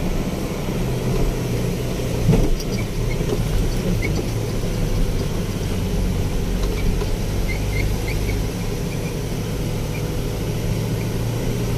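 Loaded truck's engine running steadily with a low hum, one short knock a little over two seconds in.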